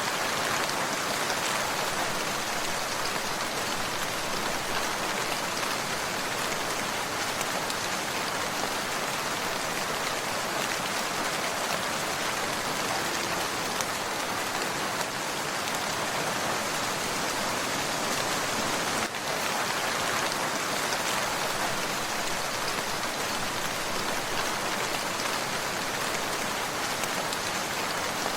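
Steady rain falling in an even, unbroken hiss.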